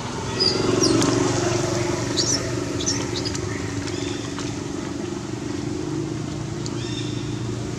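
A motor engine running steadily, coming in about half a second in, with birds chirping now and then.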